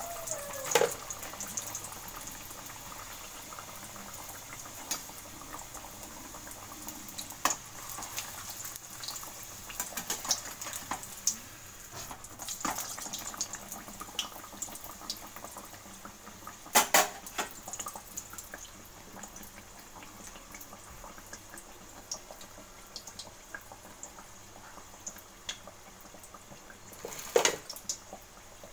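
A stuffed dough parcel deep-frying in hot oil: steady sizzling with scattered sharp crackles and pops, the loudest about a second in, about seventeen seconds in and near the end.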